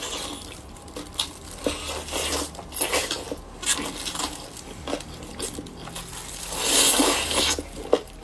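A person eating: wet chewing and biting with irregular crunches and clicks, and a longer noisy crunch or slurp near the end.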